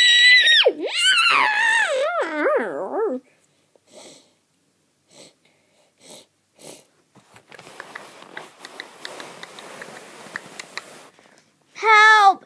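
A child's voice imitating a horse's whinny: a long, high, quavering cry that steps down in pitch over about three seconds. Then soft rustling and small clicks as toy horse figures are handled on carpet, and a short high cry near the end.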